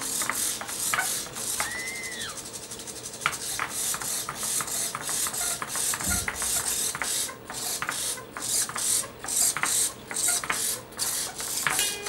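Small hobby servo motors of a hexapod walking robot whirring in many short, quick bursts as they swing its legs and it backs and turns away from an obstacle.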